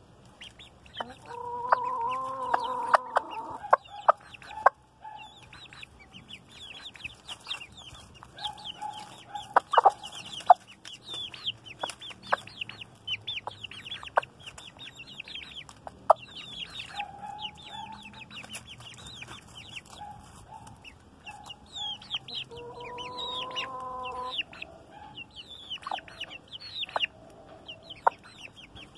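Young chickens cheeping in a steady run of short, high peeps while a hen clucks, loudest a couple of seconds in and again later, with sharp clicks of beaks pecking feed from a bare hand.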